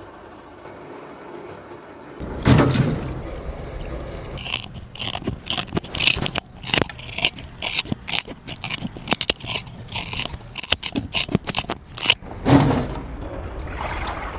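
A dog chewing a crunchy treat: a run of irregular sharp crunches from about four seconds in until near the end.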